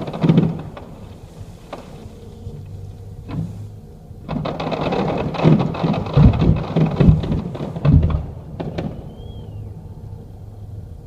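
Fireworks going off: one bang near the start, then a dense run of crackling with several heavy booms from a little after four seconds to about nine seconds in.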